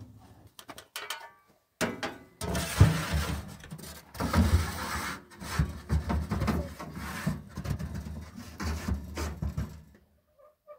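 Ash being scraped out of a sheet-metal wood stove into a metal basin with a metal scraper: irregular metal-on-metal scraping and rattling with a few sharp clanks, starting about two seconds in.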